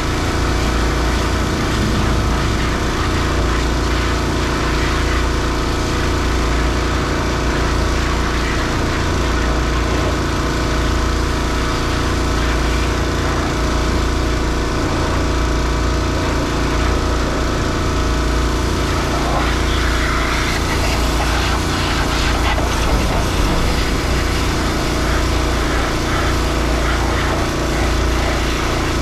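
An engine running steadily at one speed, a constant hum of several even tones.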